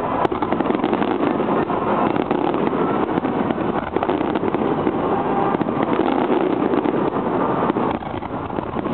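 A dense barrage of aerial firework shells bursting, with many overlapping bangs and crackles blending into a steady rumble.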